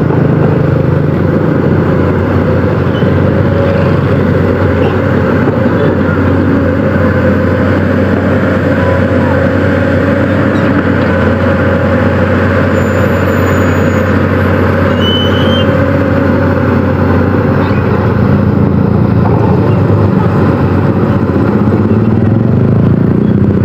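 Pindad Excava 200 hydraulic excavator's diesel engine running under load as the machine digs and swings soil, a loud steady drone whose pitch shifts a little near the end.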